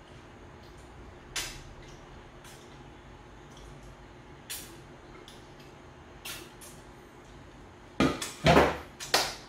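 A few faint clicks of light handling, then near the end a cluster of loud knocks and clatter as a clear plastic food processor bowl is set down on a stainless steel counter.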